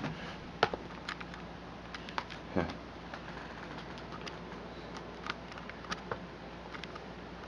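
Scattered light clicks, taps and scratches of a kitten's claws and paws on a laptop lid and on the camera, with one louder knock about two and a half seconds in.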